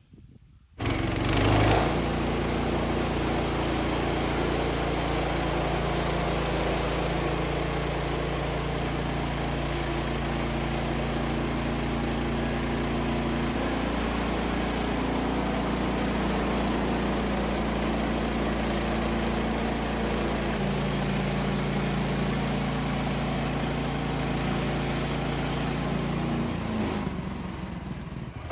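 Engine of a portable bandsaw sawmill running steadily while milling a red oak log, coming in abruptly about a second in, its note shifting a couple of times as the load changes.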